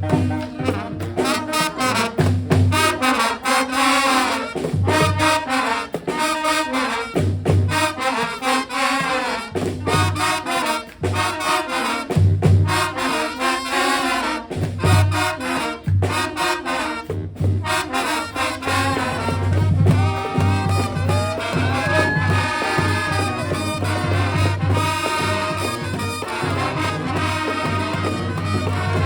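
Live brass band playing: horns over a pulsing low bass line, with sharp percussive beats throughout.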